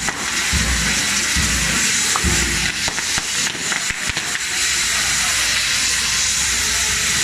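Castillo fireworks tower burning: its spinning fireworks wheels spray sparks with a loud steady hiss, with a run of sharp crackles and pops near the middle.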